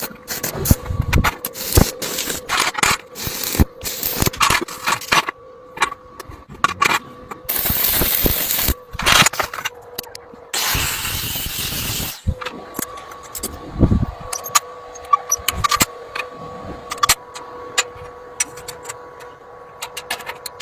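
Metal parts clanking, knocking and scraping during workshop metalwork, with two longer hissing bursts about 8 and 11 seconds in and a steady faint hum underneath.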